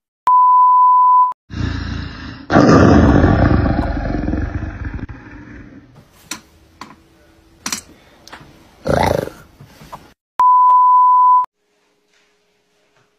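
Two steady one-second beep tones at one pitch, about ten seconds apart. Between them a loud roaring noise breaks in sharply and fades away over about three seconds, followed by a few sharp clicks and a short burst.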